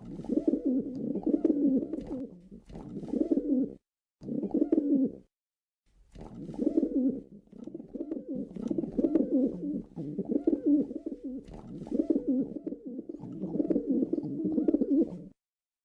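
Pigeon cooing in long runs of low, repeated coos, with two short breaks about four and five seconds in.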